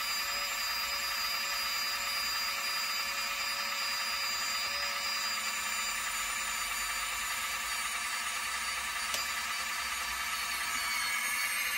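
Small electric motor of an RC model's ramp drive running steadily through its ESC, with a thin whine that fades out about halfway through; the owner thinks its battery is dying.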